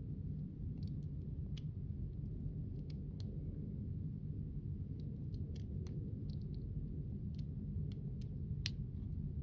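Small, sharp clicks coming unevenly from a lock pick and tensioner working the pins of a small brass challenge padlock held in the hand, over a steady low hum.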